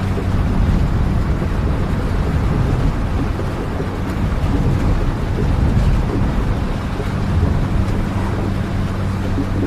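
Steady rain ambience with a deep, even rumble and a faint low hum underneath.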